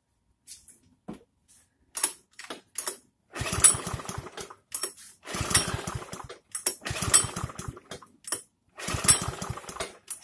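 Einhell petrol lawn mower being pull-started: a few light clicks, then four pulls of the recoil starter, about a second each, cranking the engine over without it catching. The engine has been primed with ten presses of the primer bulb and has become harder and harder to start.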